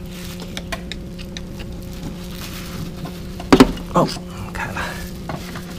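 Small clicks and scrapes of a screwdriver prying at a stuck valve cover on a BMW N62 V8, over a steady low hum. About three and a half seconds in come two loud short sounds, the second falling in pitch, as the cover is forced.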